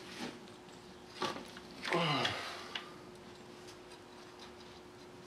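Small metal clicks and a sharp knock as a valve spring compressor and valve keepers are worked on a diesel cylinder head. About two seconds in there is a brief sound sliding down in pitch, with a faint steady hum underneath throughout.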